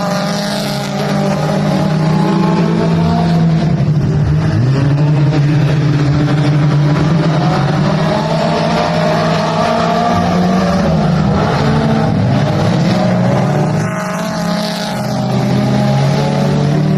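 Dirt-track mini stock race car engine running hard under racing load, its pitch dropping as the throttle lifts, about four seconds in and again near the end, and climbing back as it pulls away.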